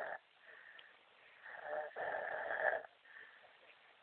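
A man snoring heavily: one long, loud, rasping snore lasting over a second, starting about a second and a half in, with much quieter breathing before and after it.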